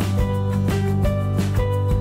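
Background music with a steady beat of about two strokes a second under held notes.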